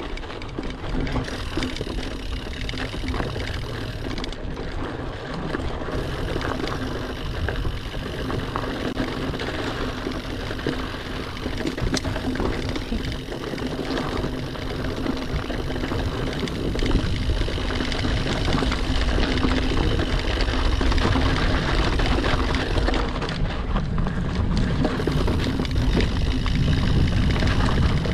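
Mountain bike riding down a dry dirt trail: tyres rolling over dirt, small rocks and dry leaves, with small clicks and rattles from the bike, and wind rumbling on the chest-mounted camera's microphone. It gets louder a little past halfway, as the speed picks up.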